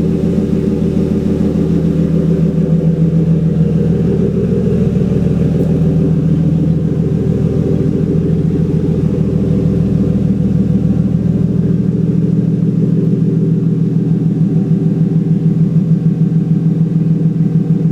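Lexus IS300's 2JZ-GE inline-six idling steadily through an aftermarket tubular header and mid-pipe, with the rest of the exhaust stock: a loud, deep exhaust rumble with an even pulse. About twelve seconds in, the deepest part of the rumble drops away.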